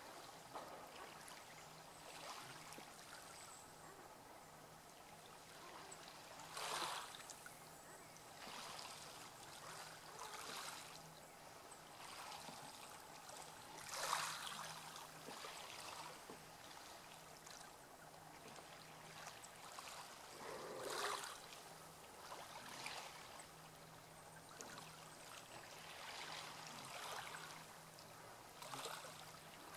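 Faint lapping of calm sea water, with several soft rushing swells, the loudest about seven seconds apart, over a faint low steady hum.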